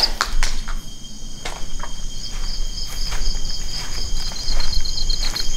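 Insects chirping in rapid pulsed trills, with irregular footsteps as someone walks.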